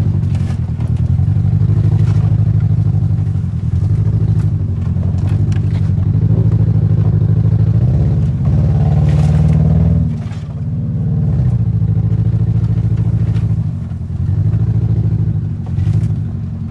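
Car engine labouring along a rough off-road trail, its note rising and falling with the throttle. It climbs in a rev about eight seconds in and drops back just after ten. Scattered knocks and clatter come from the car working over the rough ground.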